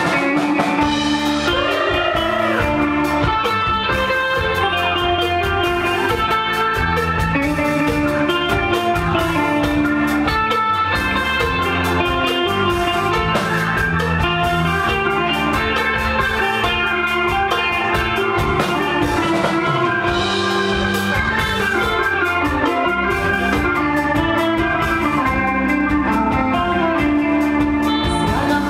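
Live band playing a pop song, mostly instrumental: drum kit and guitar over a steady beat.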